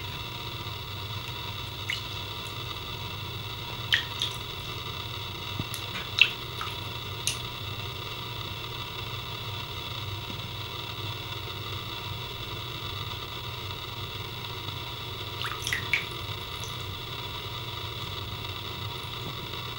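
Water dripping from a wet hand into a bathtub: a handful of separate drops and small splashes, the loudest about six seconds in and a little cluster near the end, over a steady background hum.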